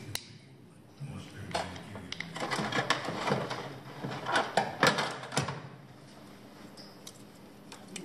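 Rummaging through a tool-cart drawer: tools and small metal parts clattering and clicking for about four seconds, then dying down.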